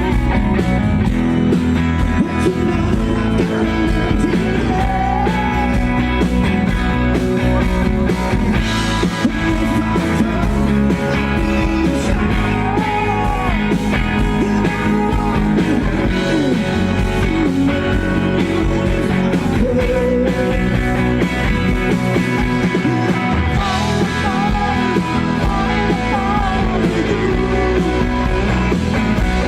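Live rock band playing amplified at a sound check, with guitar and a singing voice.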